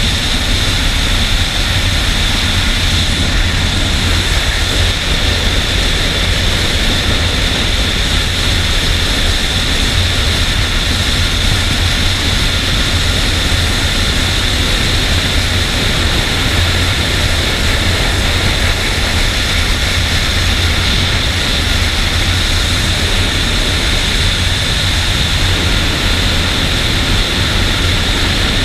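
Suzuki Bandit motorcycle's inline-four engine running at a steady highway cruising speed, buried under heavy, constant wind rush on the bike-mounted camera.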